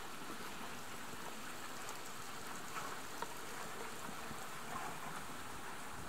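Steady outdoor water noise, an even rain-like hiss with a few faint ticks.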